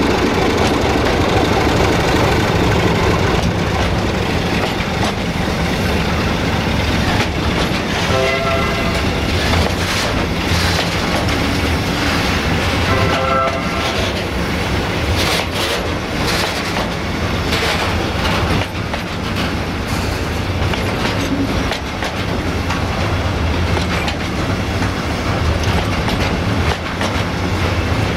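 Container freight train rolling past close by: a steady rumble with the wagons' wheels clattering over rail joints. Two short ringing tones sound about 8 and 13 seconds in.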